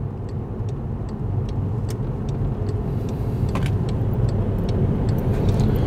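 Car engine and tyre noise heard from inside the cabin while driving, a steady low hum and road rumble that grows gradually louder as the car pulls away from the turn.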